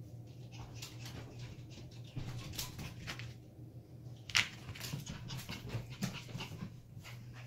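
Miniature schnauzer puppies playing and scuffling, with many quick scratches and taps of claws on a hardwood floor and rug. There is one louder sharp sound about four and a half seconds in.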